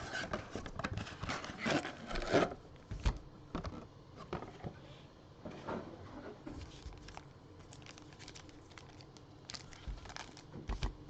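Crinkling and rustling of trading card pack wrappers and cards being handled, a run of light clicks and taps that is busiest in the first couple of seconds and then thins out.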